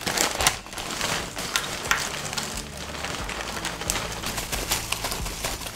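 Potato chip bag crinkling as it is handled, a dense, continuous run of crackles.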